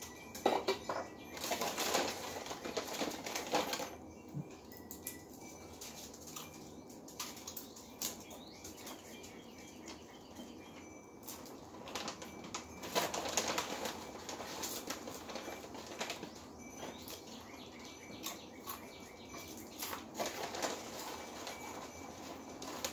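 Rustling, scraping and clicking of electrical wires and a flat plastic piece being worked by hand at a ceiling electrical box, in three louder spells with small clicks between.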